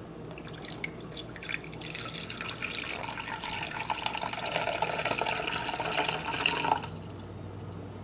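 About a cup of water poured from a glass measuring cup into the plastic water reservoir of a vintage Hamilton Beach drip coffee maker: a steady splashing stream that grows louder and stops abruptly about seven seconds in.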